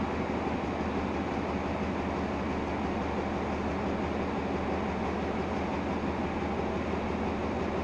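Diesel-electric locomotive standing with its engine running, a steady low hum with no change.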